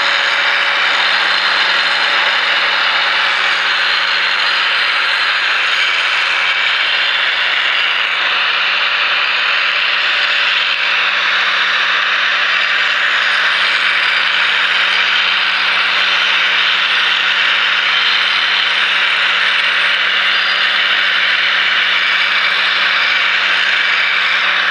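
Drill Master 4-inch angle grinder running continuously, its abrasive disc grinding the steel edge of a Schrade hatchet to thin the bevel. A steady motor hum sits under the hissing grind.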